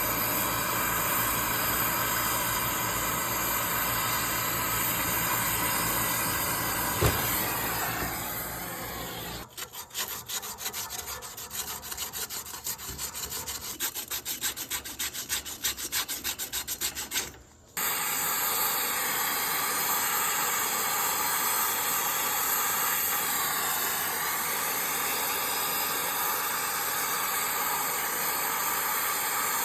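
Steady hiss, broken in the middle by about eight seconds of rapid, even back-and-forth rasping strokes like sawing, which stop abruptly before the hiss returns.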